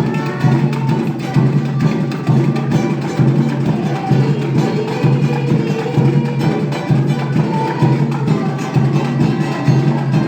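A band playing an instrumental passage in rehearsal, with a steady, evenly pulsing percussion beat under held notes.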